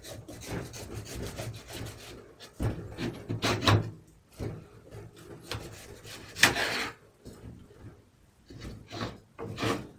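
Kitchen knife sawing through a yellow melon's rind on a wooden cutting board, in irregular rasping, scraping strokes as the melon is cut in half. The loudest stroke comes about six and a half seconds in.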